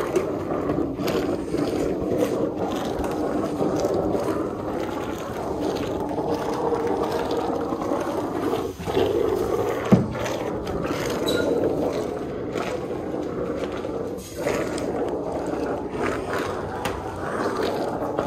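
Self-serve car wash foam brush scrubbing over a soapy car body, a steady swishing scrape, with a single knock about ten seconds in.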